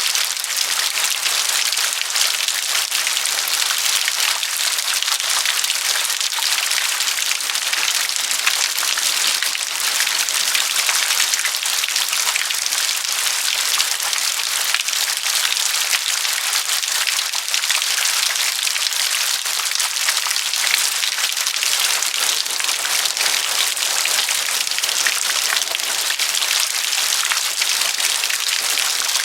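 Dense rain falling on a hard surface, a steady patter of many small drops with a crisp, high-pitched hiss.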